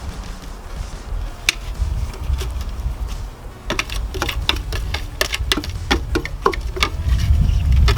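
A run of irregular sharp clicks and knocks, one about a second and a half in and then many close together in the second half, over a low rumble.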